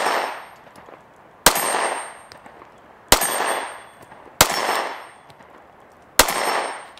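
SCCY 9mm compact pistol fired four times, slow deliberate shots about one and a half seconds apart, each crack followed by a short echo that fades within a second.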